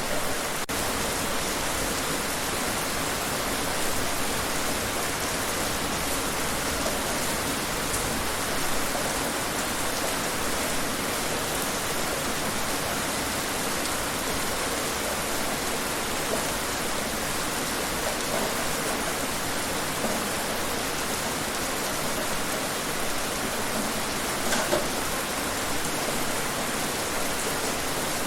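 Steady rain falling outdoors: an even hiss of rainfall, with a few separate drops now and then.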